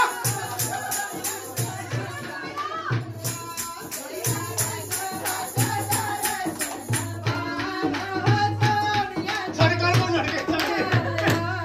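Group devotional singing (bhajan) with a dholak hand drum keeping a steady beat, jingling percussion and hand-clapping.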